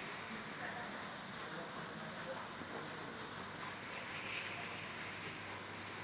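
Insects chirring steadily over a constant hiss.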